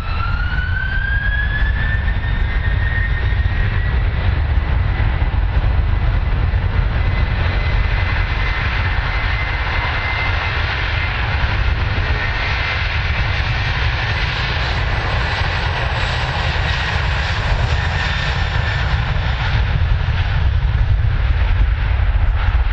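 Airbus A330-200 airliner's turbofan engines at high thrust on the takeoff roll. A whine rises in pitch over the first couple of seconds and then holds steady over a deep rumble, which grows louder near the end as the jet passes close by.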